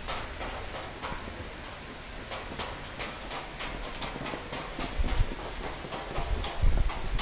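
Summer thunderstorm rain falling steadily, with irregular sharp drops ticking on a surface close by. Low rumbling bursts come in over the last couple of seconds.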